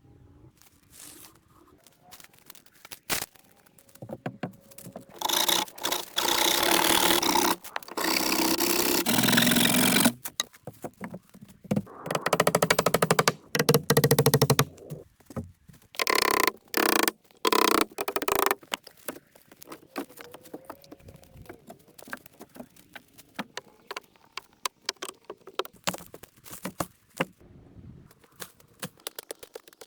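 Several loud bursts of scraping noise, a few seconds each, between quieter stretches of scattered knocks and clicks.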